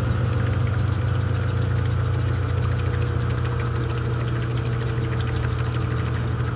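Electrolux Essencial Care LES13 washing machine running with a steady, loud low hum and a faint whine above it.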